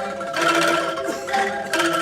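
Ensemble of bamboo angklungs shaken in a tremolo, several notes held together and then changing to new ones, playing a folk melody.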